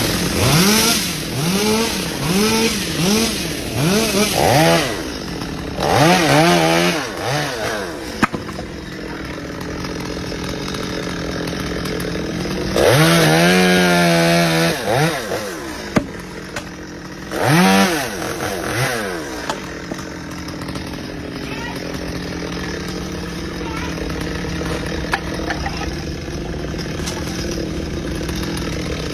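Two-stroke chainsaw engine running continuously. It revs up and down in a quick run of short throttle blips over the first several seconds, holds a longer high rev about halfway through and another briefly a few seconds later, then runs at a steady pitch.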